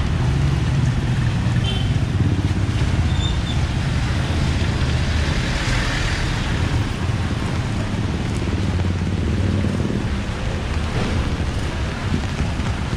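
Street traffic: a motor vehicle's engine running close by, with a low, fluttering rumble over a steady hiss.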